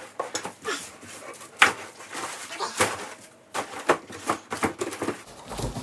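Packing paper and cardboard rustling and crinkling as hands dig through a shipping box, with irregular sharp crackles and scrapes.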